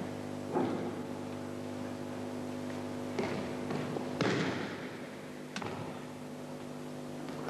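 Several thuds of bodies and hands slapping onto the training mat as thrown aikido partners take breakfalls, the loudest about four seconds in, over a steady electrical hum.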